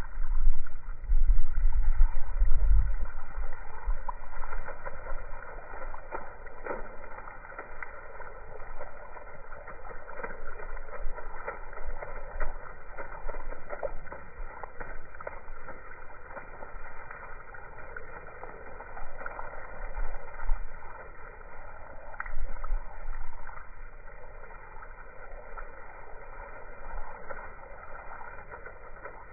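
Water spraying up from a garden hose and splashing down, slowed down to slow-motion speed, so it is a low, muffled rush with scattered splashes. A low rumble is loudest in the first three seconds.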